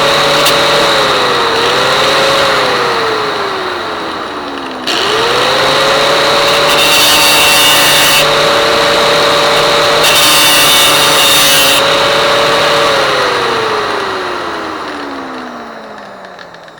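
Grinder with a narrow grinding wheel running at speed, grinding a rusted steel spring out of a window screen frame's groove, with gritty scraping that grows louder at times as the wheel bites the metal. About three seconds in, the motor slows and then starts up again suddenly near five seconds; from about thirteen seconds it winds down steadily as it is switched off.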